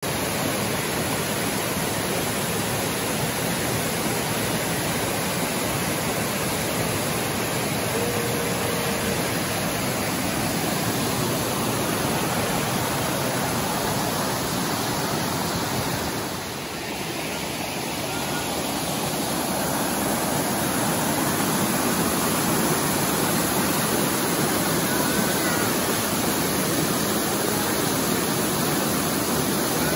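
Water rushing down a rocky cascade waterfall and through the rapids below it: a steady, even rush that dips briefly about halfway through.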